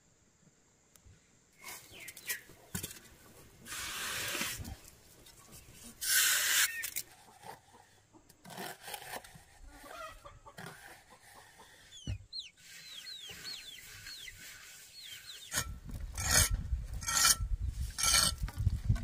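A trowel scraping and slapping wet cement mortar onto a brick pond wall, with a run of short, high, down-sweeping bird chirps in the second half. Near the end a low rumble comes in, with three sharp bursts a little under a second apart.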